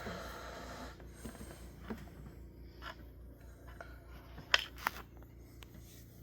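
Sleeping dog breathing and snoring softly, with a breathy snore in the first second. A few short sharp clicks come through, the loudest about four and a half seconds in.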